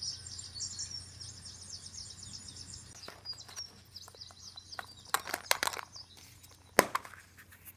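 Small birds twittering in rapid high chirps that fade out after about three seconds. Then come several sharp clicks of plastic being handled, the loudest near the end.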